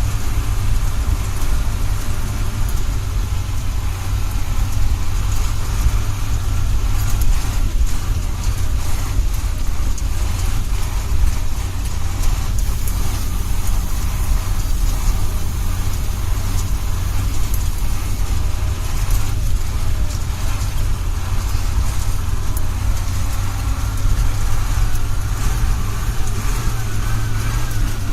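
Ural 4320 6x6 truck's diesel engine running with a steady, deep low rumble.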